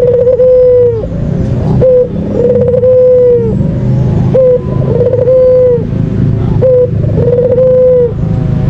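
White Barbary dove (puter putih) cooing: a short note followed by a long held coo that drops at its end, the pair repeated about every two and a half seconds. A steady low rumble runs underneath.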